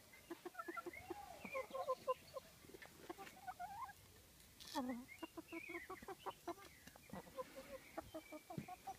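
Several hens clucking close by in quick short calls, with one longer call falling in pitch about halfway through.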